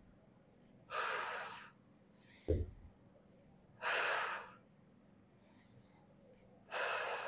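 A woman breathing out hard three times, a sharp breath about every three seconds, one with each repetition of a kettlebell goblet clean. A dull low thump sounds between the first and second breaths.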